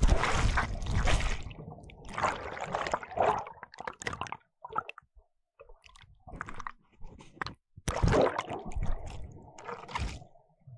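Water splashing, sloshing and gurgling around a camera as it is plunged into the sea and held underwater. There are three loud spells, at the start, about two seconds in and about eight seconds in, with scattered small knocks and bubbly clicks between them.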